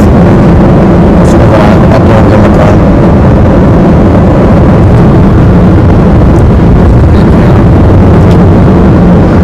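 A vehicle driving at speed: steady engine and road rumble with wind buffeting the microphone, loud and unbroken.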